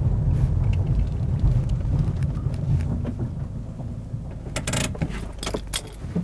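Car driving, a low rumble that dies away over the second half as the car pulls up, followed by a cluster of sharp clicks and knocks near the end.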